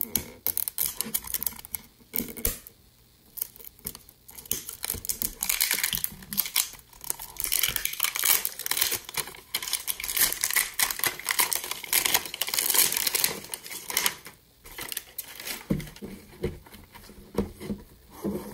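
Paper wrapping being peeled and torn off a plastic toy capsule, crinkling and rustling in irregular bursts. A few knocks near the end as the plastic capsule is handled.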